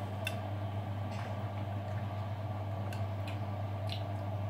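Front-loading washing machine running in its rinse phase with water in the drum: a steady low hum with a few short sharp ticks scattered through.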